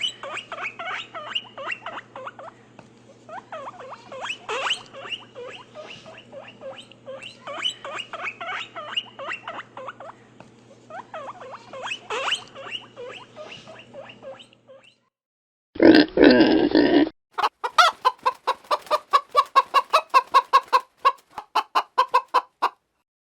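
Chickens clucking for about fifteen seconds over a steady low hum. Then comes one loud animal call lasting about a second, followed by a fast run of short pulsed calls, about seven a second, for about five seconds.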